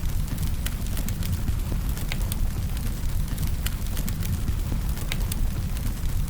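Wood fire burning: a steady low rumble of flames with frequent sharp crackles and pops from the burning firewood.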